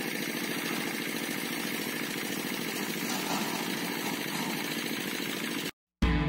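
An engine running steadily at an even rate, which cuts off abruptly near the end. Guitar music starts just afterwards.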